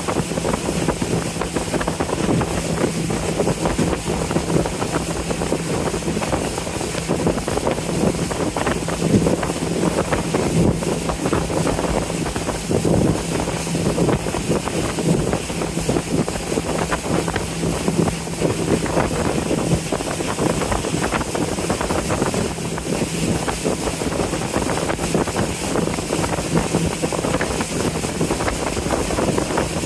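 Cruise boat under way on a river, its engine running with a steady low hum, mixed with wind noise on the microphone.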